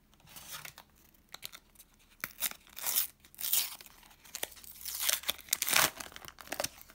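A paper sticker packet being torn open and crinkled by hand, in a run of short, irregular rips and rustles with small sharp crackles. The loudest rips come a little past five seconds in.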